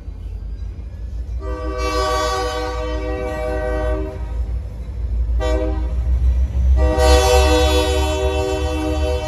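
Blue Ridge Southern diesel locomotive's multi-note air horn sounding a long blast, a short one, then another long one, over the low rumble of the moving freight train. The pattern is that of a grade-crossing signal.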